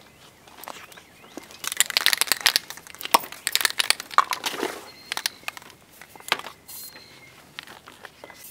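Paper pages of a paperback manga crinkling and rustling in the hands as they are pulled loose and crumpled. A dense run of sharp crackles starts about a second and a half in and lasts about three seconds, then thins to scattered rustles.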